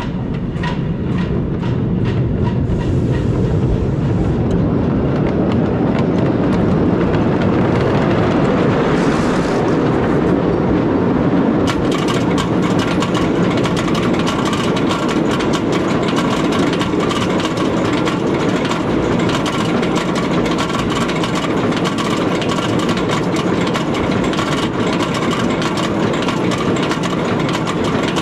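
Wooden roller coaster train rolling out of the station with a steady rumble, then, from about twelve seconds in, climbing the curving chain lift with rapid, continuous clicking over the rumble.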